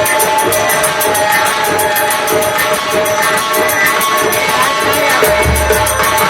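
Nautanki folk-theatre music: held instrumental tones over busy hand percussion, with deep drum strokes coming in about five seconds in.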